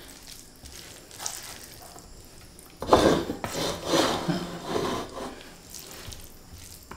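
Plastic spoons and forks scraping and scooping fried flat rice noodles on a metal tray, with a run of loud rasping scrapes starting about three seconds in and lasting about two seconds.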